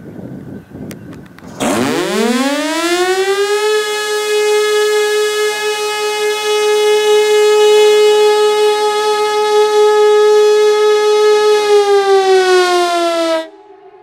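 Pintsch Bamag pneumatic high-performance siren (HLS) sounding one long blast of a fire-alarm test. It winds up in a fast rising wail to a steady, very loud tone, holds it for about eight seconds, then dips slightly in pitch and cuts off abruptly near the end.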